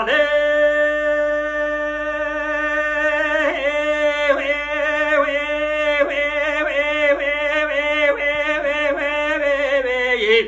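A man singing unaccompanied in the Kurdish dengbêj style: one long high note, held steady for about three seconds and then shaken in quick ornamented turns on the same pitch, falling away near the end.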